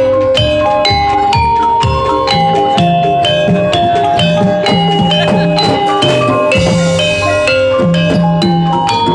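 Jaranan dance music: pitched mallet percussion plays a quick melody of short ringing notes over a busy pattern of low hand-drum strokes.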